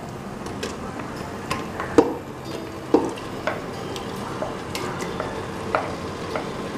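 Wooden spatula scraping yogurt-marinated mutton out of a glass bowl into a hot pressure cooker, with sharp knocks of the spatula on the bowl and pot rim, the loudest about two and three seconds in. Under it a steady sizzle from the frying onion and garlic-ginger masala as the meat goes in.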